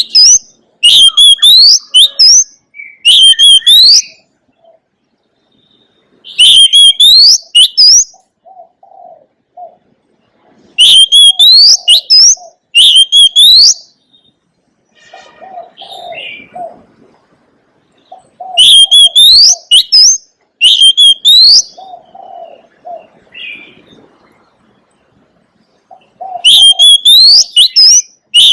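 Oriental magpie-robin singing: loud phrases of rapid, high whistled notes sliding up and down, coming in bouts a few seconds long about five times, with softer low notes in the gaps between.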